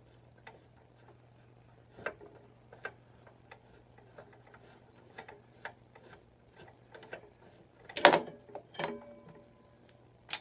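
Irregular light metallic clicks and taps of hand tools and parts being worked on a motorcycle's front end, with a louder metallic clatter about eight seconds in that rings briefly.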